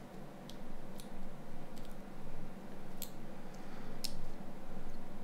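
Small plastic and metal parts of a Nokia N93 handset clicking as they are pressed and fitted together by hand: about five short, sharp clicks, the loudest two near the middle and about four seconds in. A steady low hum lies underneath.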